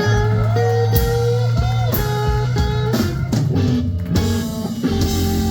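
Live blues band playing a slow blues: electric guitar playing a phrase of bent notes over bass and drums, settling into a held chord about five seconds in.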